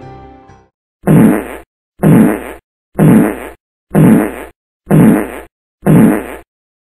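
Music fading out, then the same short, loud comic sound effect played six times, about once a second.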